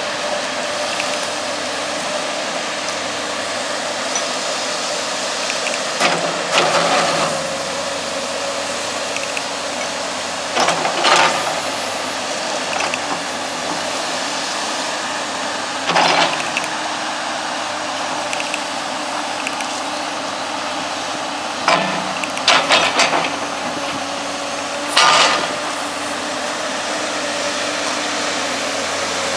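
Komatsu PC200LC-8 excavator's six-cylinder diesel engine running steadily with its hydraulics as the boom and bucket are worked, broken by several short, loud clanks.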